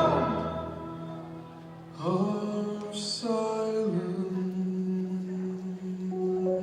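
Music: a loud sung note dies away, and after a short hush soft sustained instrumental chords come in, moving slowly from note to note, with a brief high shimmer about three seconds in.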